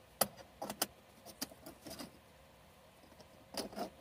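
Metal binder clips with magnets glued on clicking and clinking as they are set against the metal edge of a minivan's ceiling, with the fabric curtain rustling. Several separate sharp clicks in the first two seconds, and a quick cluster of clicks and rustling near the end.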